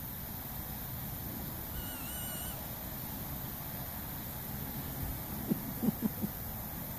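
A few short, low hooting animal calls in quick succession near the end, over a steady hiss, with a faint wavering whistle about two seconds in.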